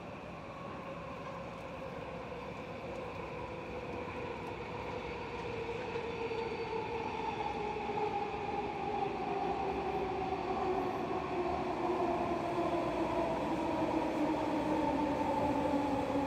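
SkyTrain train running on linear induction motors, approaching and slowing. Its electric whine falls steadily in pitch as it grows louder.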